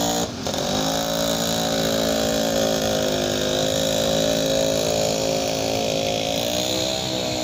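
Motorcycle engine idling in stop-and-go traffic with a steady pitch that dips briefly about a second in and again near the end.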